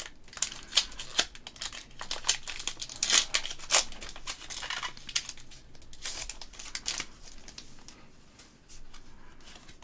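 Foil booster-pack wrapper crinkling and tearing as a Pokémon card pack is ripped open, with quick sharp rustles and clicks of the cards being handled. The sounds are dense at first and thin out near the end.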